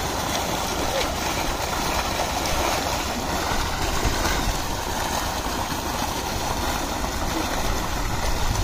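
Tubewell outlet pipe gushing a heavy, steady stream of water into a concrete tank, with the water churning and splashing as swimmers move through it.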